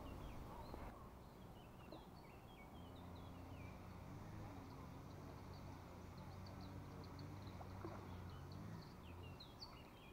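Faint small birds chirping and twittering in quick short notes, over a low steady hum that comes in about three seconds in and fades near the end.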